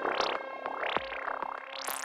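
Electronic music: synthesizer sweeps rising and falling in pitch, over a regular ticking beat.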